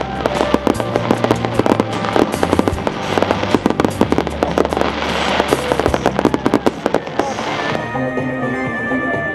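Fireworks bursting and crackling in a dense, rapid barrage over background music; the bangs stop about eight seconds in and the music carries on alone.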